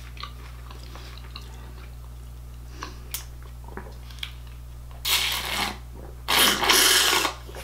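Slurping milk from a cereal bowl held to the mouth: two loud slurps about five and six seconds in, the second longer. Before them, a few faint clicks.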